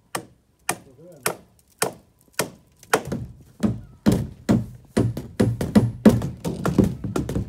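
Hammer blows on wood: single strikes about every half-second, then from about three seconds in several hammers nailing down wooden roof boards at once, quick overlapping blows, each with a hollow thud.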